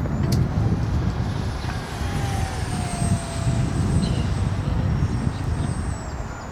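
Electric ducted fan of an RC jet whining thinly and high as it flies, the pitch sliding down late on as it passes. A heavy low rumble runs underneath.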